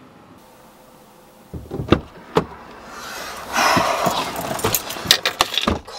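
Handling noises inside a car's cabin as a person moves about in the driver's seat: knocks and clicks from about a second and a half in, a dull thump, about a second of rustling near the middle, then more clicks.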